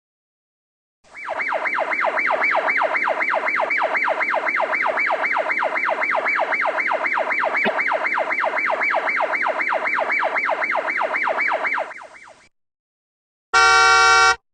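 Electronic siren on a fast yelp, its pitch sweeping rapidly up and down about three to four times a second, starting about a second in and cutting off after about eleven seconds. Near the end comes a short, steady, buzzy tone lasting under a second.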